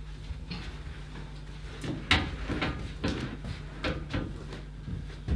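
Irregular short rustles and soft knocks from a padded treatment table and its cover as a person sits down and shifts on it, over a low steady hum.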